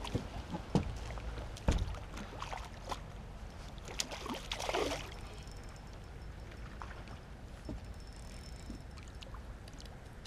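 Hooked trout splashing and thrashing at the surface as it is played on the line: several sharp splashes in the first four seconds and a longer splash at about four and a half seconds, then only faint water movement.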